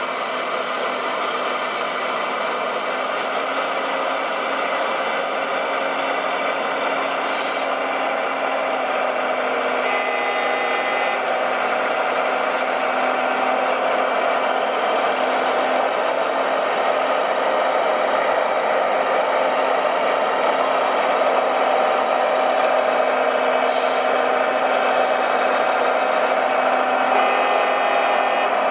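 Radio-controlled model truck and excavator running, a steady motor whine that grows slightly louder toward the end. Twice there is a short hiss.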